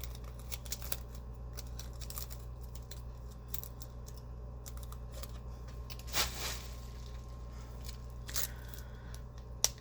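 Plastic shrink-wrap being picked at and peeled off an eyeshadow palette: faint scattered scratches and crinkles, with a louder brief rustle about six seconds in and another near the end.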